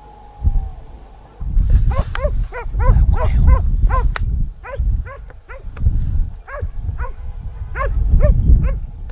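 Pack hunting dogs of a boar-hunt rehala barking and baying in quick succession, about three short rising-and-falling barks a second, starting about a second and a half in. A low rumble of wind on the microphone runs underneath.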